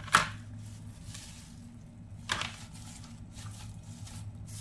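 Fresh mint leaves rustling as they are handled and pressed by hand into a plastic storage box, with two sharp knocks, the first near the start the loudest and the second about two seconds later. A steady low hum runs underneath.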